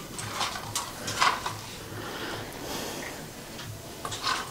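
Several short knocks and rattles, the clearest in the first second and a half, over a faint low pulse repeating about three times a second.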